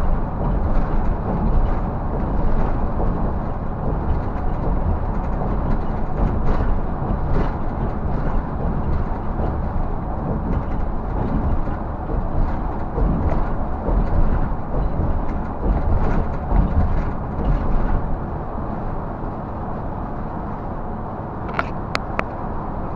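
Cab noise of a Scania bus cruising on the highway: steady engine drone mixed with road and tyre noise. It eases off slightly for the last few seconds, with a few light clicks near the end.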